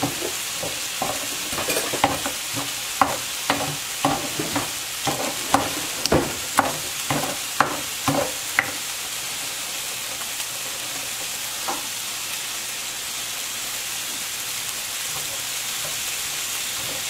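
Stone pestle striking and grinding in a volcanic-stone molcajete, mashing tomatillo and chile for salsa, about two knocks a second; the knocking stops about halfway through. Under it, meat sizzles steadily in a pan.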